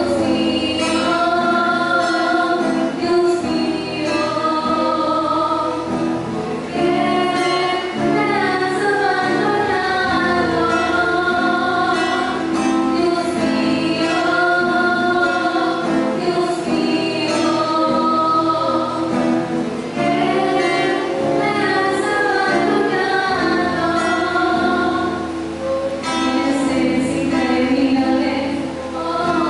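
Two young female voices singing a Spanish-language Christian song into microphones, accompanied by acoustic guitar.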